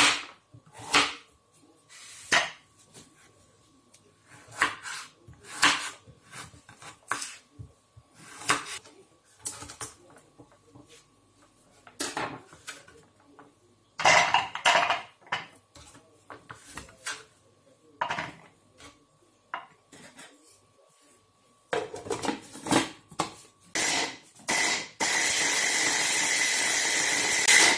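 A kitchen knife chopping peeled horseradish root on a wooden cutting board, in irregular knocks about once a second. About halfway through, the pieces clatter into a plastic chopper bowl. Near the end a hand blender's chopper attachment runs steadily for about three seconds, mincing the horseradish, and cuts off.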